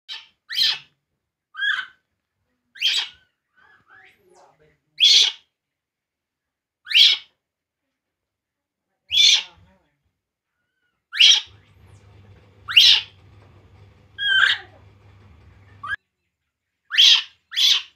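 Infant macaque crying: short, shrill calls repeated every second or two, two in quick succession near the end.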